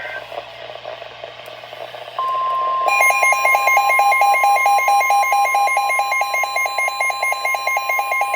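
Weather radio alert: faint static, then about two seconds in the steady NOAA Weather Radio warning alarm tone begins. Under a second later the Midland WR-400 receiver's own alarm starts beeping rapidly over it, about six beeps a second. The receiver is going off late, partway through the alarm tone.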